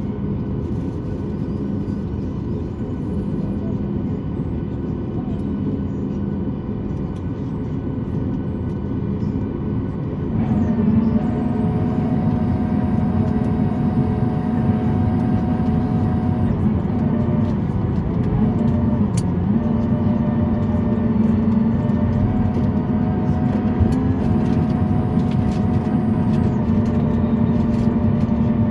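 Boeing 737 MAX 8 machinery heard from inside the cabin on the ground: a steady hum with several pitched tones. It grows louder about ten seconds in, and its higher tones step up and down a few times.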